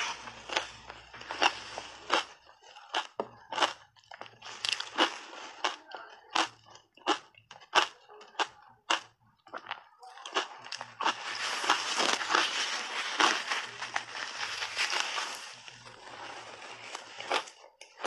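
Crunchy shaved ice being bitten and chewed close to a clip-on microphone. It starts as a run of sharp, separate crunches. About ten seconds in, a big bite brings several seconds of dense, continuous crunching, and separate crunches return near the end.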